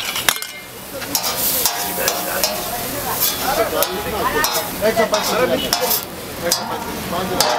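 Liver and chopped tomato sizzling on a large flat iron griddle while a metal spatula scrapes and clatters across it in repeated quick strokes.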